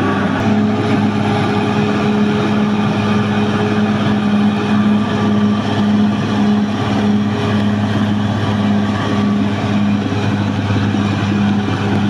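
Caterpillar D6R XL crawler bulldozer's diesel engine running steadily as the machine moves over the fresh dirt, a constant low drone.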